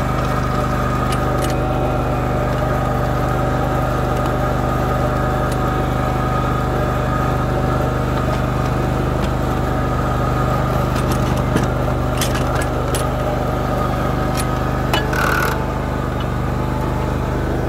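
A Cub Cadet GT2544 garden tractor's engine runs at a steady speed under load as the tractor drags a rear blade through sand, with a steady high tone over the engine. A few sharp clicks come between about eleven and fifteen seconds in.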